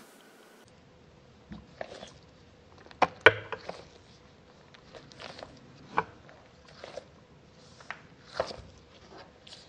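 Hands squeezing and kneading a soft, stretchy squishy toy, giving scattered soft sticky squelches and small clicks about once or twice a second.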